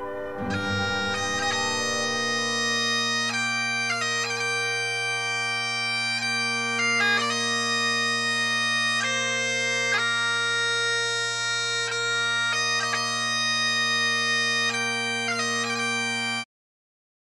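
Bagpipes playing a melody on the chanter over steady drones. The sound cuts off suddenly about a second before the end.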